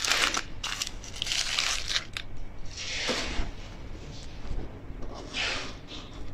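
Foil candy wrapper crinkling and rustling in several short bursts as it is peeled off a seed-studded candy on a stick and crumpled.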